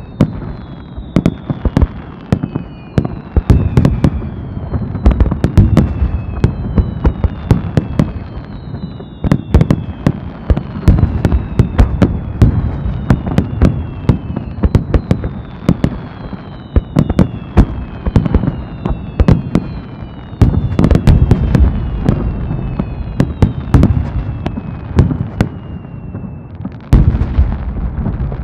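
Japanese aerial fireworks in a dense rapid barrage: shells bursting with sharp bangs and deep booms, over which many short whistles fall in pitch one after another. Near the end the bursts merge into a thick rolling rumble.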